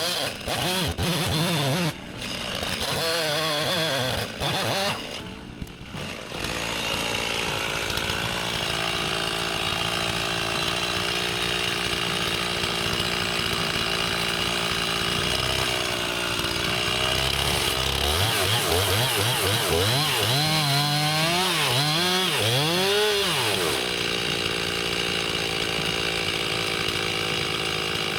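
Chainsaw running at high revs, dipping briefly early on and then swooping up and down in pitch several times in the latter part as the throttle changes.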